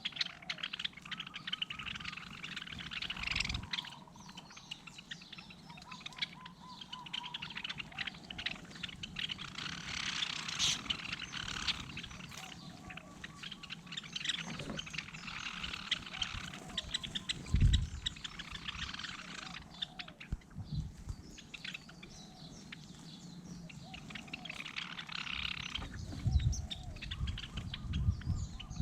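Birds chirping, a steady scatter of many short calls. A few dull low thumps come through, the loudest about two-thirds of the way in and several more near the end.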